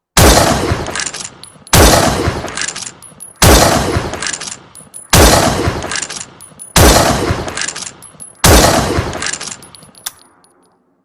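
Remington Model 700 bolt-action rifle fired six times, about one shot every 1.7 seconds. Each shot is a sharp report followed by a long echoing decay.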